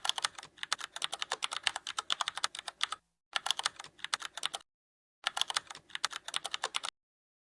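Rapid, irregular clicking at about nine clicks a second, in three runs broken by two short dead silences, that stops about seven seconds in.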